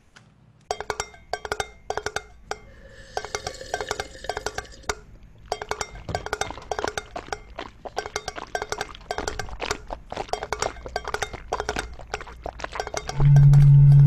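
A homemade soundscape of household objects: a quick rhythmic pattern of clinks and taps, with a rattling shake between about three and five seconds in. About a second before the end a loud, low, steady drone comes in.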